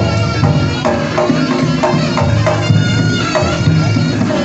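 Live jaranan music: a reedy slompret shawm plays a sliding melody over a steady beat of kendang drums and gongs.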